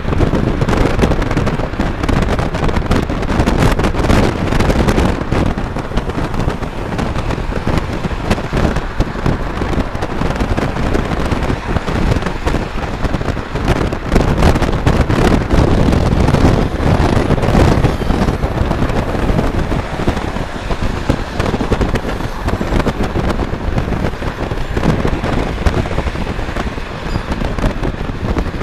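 Wind buffeting the microphone of a camera in a moving car, a dense crackle over steady road noise.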